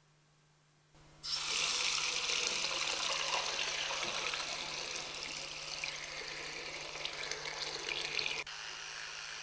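A water tap running into a bathroom sink, turned on about a second in and running steadily, quieter for the last second.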